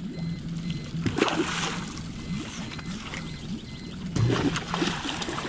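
Water splashing as a landing net is worked through shallow river water around a hooked channel catfish. There are two louder splashes, one about a second in and a bigger one with a thump near the end.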